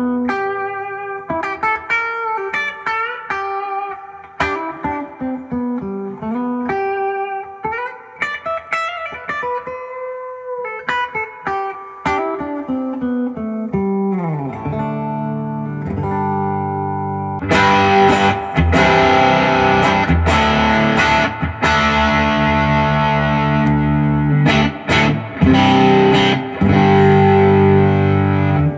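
Electric guitar (a Duesenberg Starplayer Special on its bridge humbucker) played through an amp: picked single notes and chords with notes bending in pitch, turning louder and denser from about seventeen seconds in.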